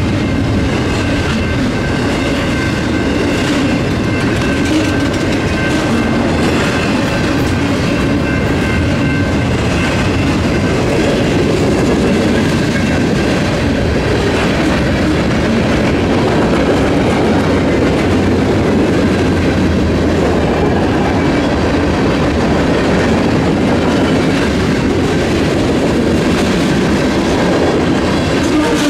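Freight train's cars rolling steadily past: a continuous rumble with the clickety-clack of wheels over the rail. A few steady high tones sound through the first third and then fade.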